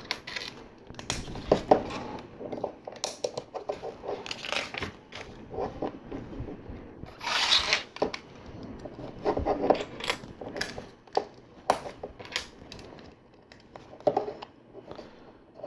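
Plastic LEGO bricks clicking and clattering as pieces are handled and pressed together, in irregular sharp clicks with a brief rustling rush about seven seconds in.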